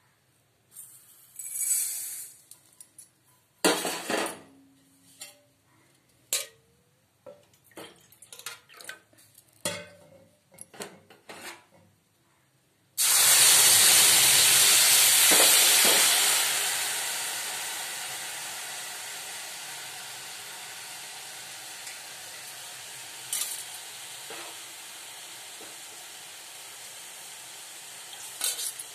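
A metal spoon scraping and knocking against an iron kadhai in short, scattered clicks while semolina is stirred. About halfway through, liquid hits the hot pan with a sudden loud sizzle that settles into steady sizzling, with a few more spoon knocks later on.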